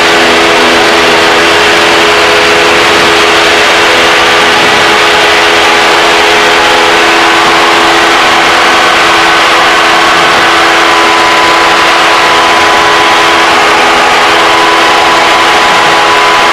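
Cessna 172's piston engine and propeller running at high power in the climb just after takeoff, a loud, steady drone heard from inside the cabin. A thin higher tone joins in about eleven seconds in.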